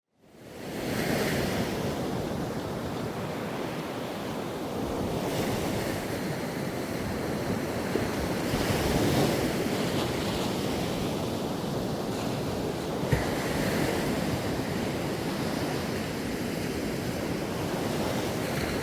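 Surf washing and breaking on a beach, a steady wash of waves, with wind on the microphone.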